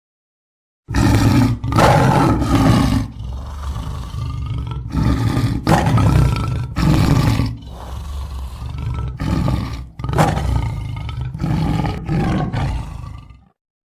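Big cat, lion or tiger, roaring and growling in a series of loud, rough calls with short breaks between them. It starts about a second in after dead silence and cuts off near the end.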